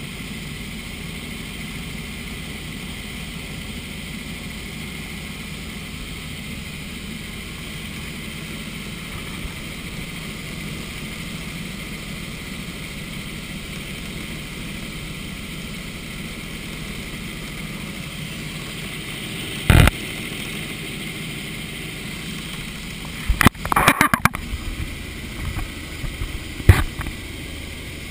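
Helicopter in flight, a steady drone of rotor and engine heard from inside the cabin. About two-thirds of the way in come a few sudden loud knocks, then a quick cluster of them, and one more near the end.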